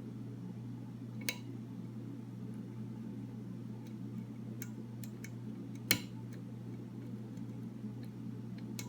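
Lock pick working the pins of a Master Lock No. 3 padlock: a few sparse, small metallic clicks, the sharpest about six seconds in, over a steady low hum.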